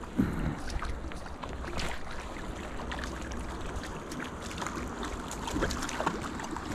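Rushing creek water and wind on the microphone, with scattered small splashes from a hooked trout thrashing at the surface.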